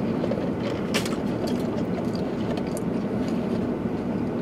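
Steady low hum of a parked car running, heard inside the cabin, with a brief click about a second in.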